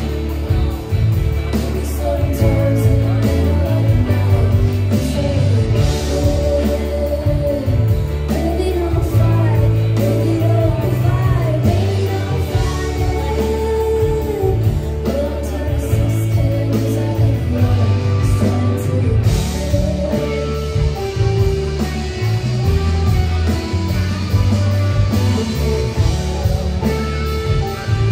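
Live rock band playing through a venue PA, heard from within the crowd: singing over electric guitars, bass guitar, drums and keyboard, with a heavy bass line.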